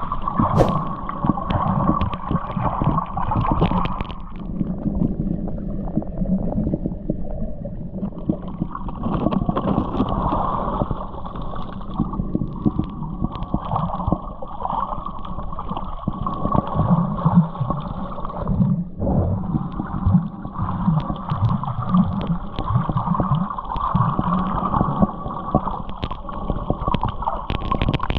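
Motorboat under way on the sea: a steady engine drone mixed with water splashing and gurgling along the hull.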